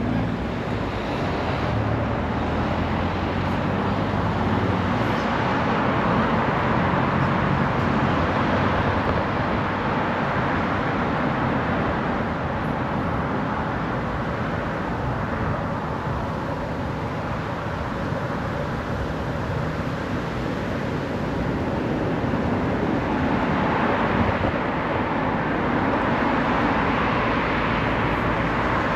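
Steady city traffic and road noise heard from a moving bicycle, an even rushing sound with no single event standing out.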